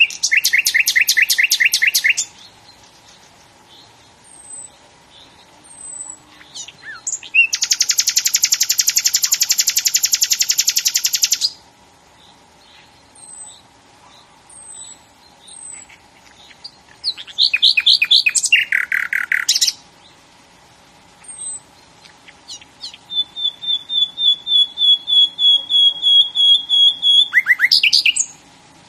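Birds singing: four loud, rapid trilled songs a few seconds apart, the last a long run of repeated notes, with faint high chirps in between.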